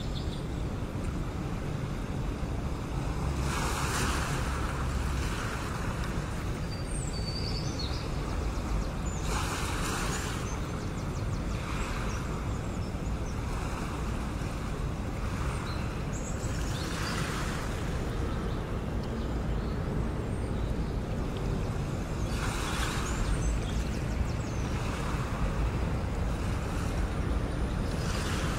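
Waves washing onto a shore, each swell of surf rising and fading every five or six seconds over a steady low rumble like wind.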